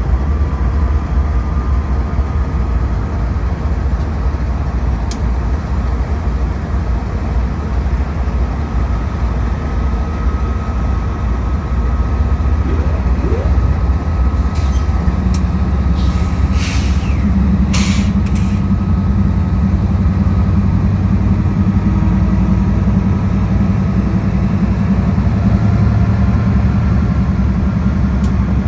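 Train pulling away from a dead stop: a steady low rumble that grows heavier about halfway through, with a cluster of short hisses and squeaks around the middle.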